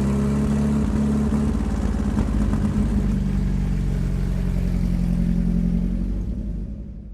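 Sherman M4A3 medium tank running, its Ford GAA V8 engine holding a steady deep drone, fading out near the end.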